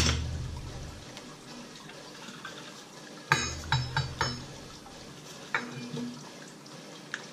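Knocks and clinks of a metal thermos bottle on a stone countertop as it is rolled over a ball of bread dough to flatten it into a disc. There is a sharp knock at the start, a cluster of four or five knocks about three to four seconds in, and a few lighter ones later.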